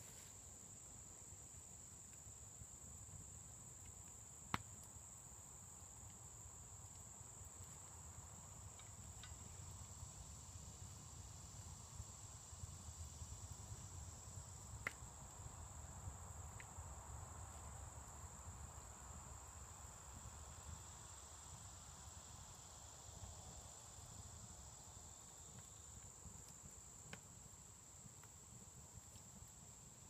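Insects, such as crickets, trilling steadily at a high pitch, with a few sharp clicks of a knife and fork against a plate.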